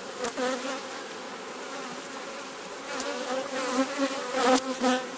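Honeybees buzzing at an open hive: a steady hum with single bees swinging close past. Several short knocks and scrapes come in the second half as a hive tool pries the frames loose.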